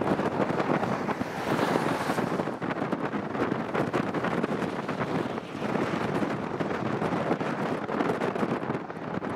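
Strong wind blowing across the microphone: a loud, steady rushing with constant rapid buffeting and uneven swells.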